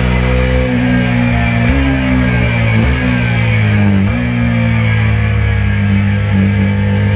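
KTM RC 390's single-cylinder engine running hard on track, its pitch stepping up sharply about two seconds in and again about four seconds in as the rider downshifts while braking for a corner, then holding steady.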